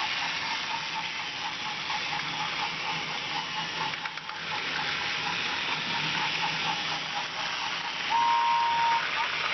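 Battery-powered Trackmaster toy train engines running on plastic track: a steady motor whir and hiss of wheels on the track, with a light regular ticking about three times a second. Near the end a short whistle-like tone is held for under a second.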